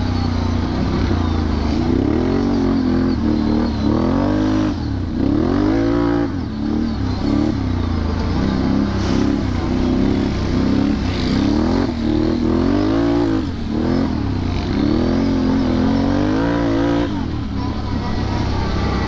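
Can-Am Renegade 1000 XXC ATV's V-twin engine running on a trail ride, its revs rising and falling again and again with the throttle.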